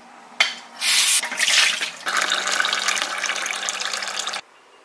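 Water splashing into a stainless-steel sink as a plastic tumbler is emptied and rinsed, in uneven surges. Then a steady stream of tap water runs into a ceramic mug, with a faint low hum under it, and cuts off suddenly near the end.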